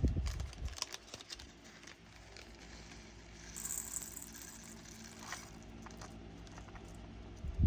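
Small plastic diamond-painting drills and their containers being handled: a clatter of clicks and rattles in the first second, then scattered light clicks and a brief rustle over a faint steady hum.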